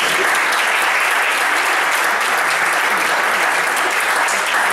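A small seated audience applauding with steady clapping at the end of a talk.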